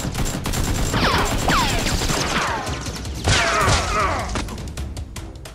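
Rapid blaster gunfire sound effects: a rattle of quick shots with falling, whistle-like whines, the strongest about a second in and again near 3.5 s, thinning out toward the end.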